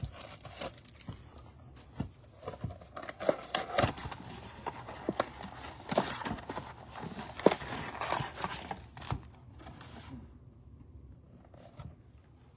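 Trading-card blaster box and its foil packs being torn open by hand: ripping, crinkling wrappers and rustling cards in a rapid string of short sounds. It dies down after about ten seconds.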